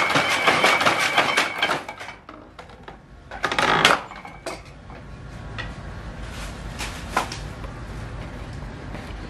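Wooden kroma-weaving loom with a turning iron shaft, cams and gears, running with a dense clatter of wood and metal knocks. The clatter thins after about two seconds to a quieter steady run with scattered knocks, and there is a loud clattering burst near four seconds.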